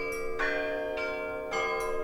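Russian Orthodox church bells ringing a zvon: smaller bells struck about four times in two seconds in a repeating pattern, over the long, steady hum of a lower bell.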